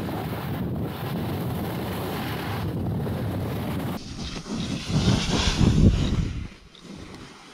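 Wind rushing over the camera microphone during a snowboard descent, a steady roar that turns gustier and louder about four seconds in, then drops off near the end.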